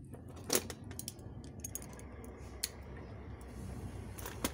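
Sharp metallic clicks and clinks of locking pliers being handled and clamped onto a 3D-printed resin bullet mold. The loudest click comes about half a second in, a few lighter ones follow, and a quick double click comes near the end.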